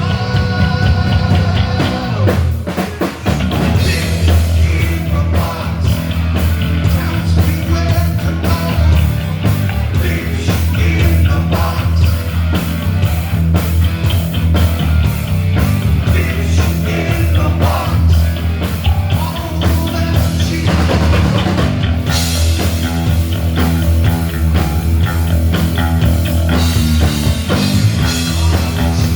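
Rock music with drums, guitar and singing, a steady beat throughout.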